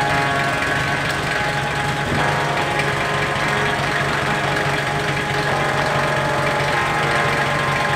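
Mercedes-Benz OM617 five-cylinder turbo diesel swapped into a Jeep Cherokee XJ, idling steadily with a diesel knock.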